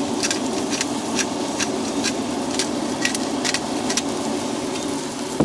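Fried eggs and burgers sizzling steadily on a camp stove griddle and pan, with a run of short crisp clicks and rattles from a salt-and-pepper bottle being worked over the eggs.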